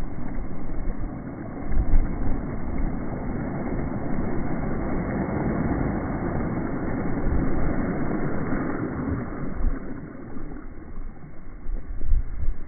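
Low rumbling outdoor noise with low thuds of wind buffeting the microphone; the rumble swells through the middle and eases off near the end.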